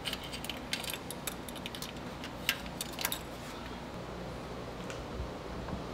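Light metallic clicks and clinks of a small wrench and screws as the breaker points and condenser are unfastened from an open points-type distributor. The clicks come several times in the first three seconds or so, then give way to a faint steady hum.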